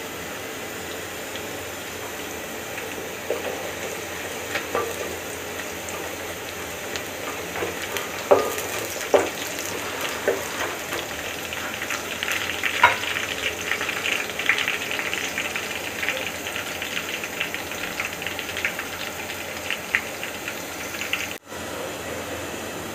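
Sliced onions frying in oil in an aluminium pot: a steady sizzle with scattered knocks of a spoon stirring against the pot. The crackling grows denser from about halfway through.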